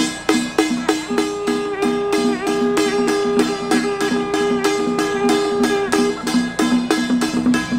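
Music: plucked-string notes on a steady beat of about three a second, with a long held higher note over them from about a second in until near the end.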